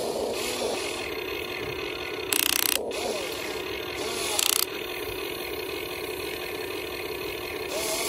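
Huina 1550 RC excavator's electric motors and gearing whirring as the boom and bucket move, a steady whine whose pitch rises and falls. Two short, loud rasping bursts come about two and a half and four and a half seconds in.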